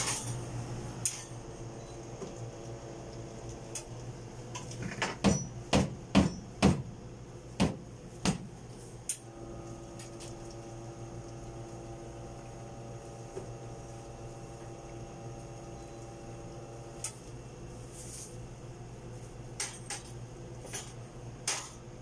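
A quick run of sharp metal knocks and clanks from espresso gear, then a Nuova Simonelli espresso machine flushing water through its group head: a steady hum for about eight seconds that stops with a click. A few more metal knocks come near the end.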